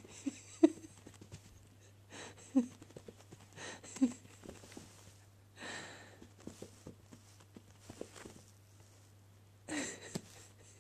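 Kittens pouncing and scrambling on carpet: an irregular scatter of soft thuds and scuffs, a few of them sharp, with several short breathy bursts among them.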